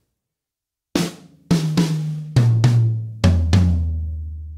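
Drum kit tom fill: one snare stroke about a second in, then two strokes on each of three toms, high to low. Each pair is lower in pitch than the one before, and the floor tom rings on after the last stroke.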